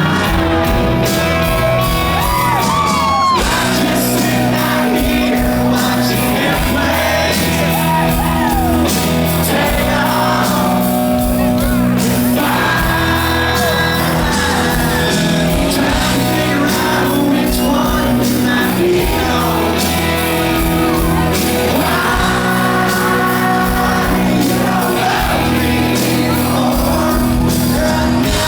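Live country band playing with a singing voice, heard in a large hall, with shouts and whoops from the crowd.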